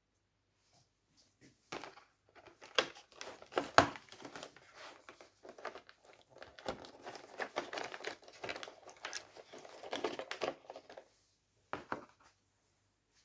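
The cardboard door of a Milka advent calendar tearing open with sharp crackles, then a chocolate's wrapper crinkling steadily for several seconds as it is unwrapped, with a few last crinkles near the end.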